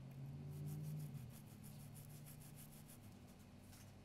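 Faint scratching of a small brush's bristles scrubbing a key fob circuit board around a corroded tactile button, in a run of quick light strokes, over a low steady hum.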